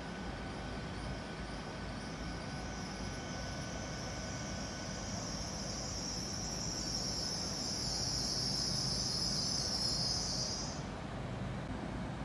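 A Class 802 IET train braking to a stop at a platform, over a low rumble from the train. A high-pitched brake squeal grows louder as it slows and cuts off suddenly about a second before the end, as the train halts.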